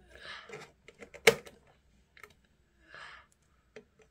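Hard plastic parts of a toy cabinet clicking and knocking as they are handled and fitted together, with one sharp snap about a second in and a few lighter clicks after it. Two short, soft rubbing noises come between the clicks.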